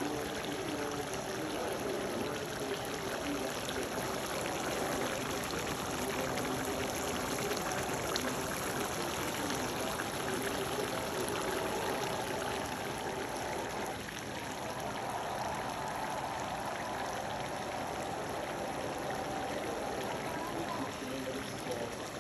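Pot of chicken curry boiling on the stove, bubbling steadily.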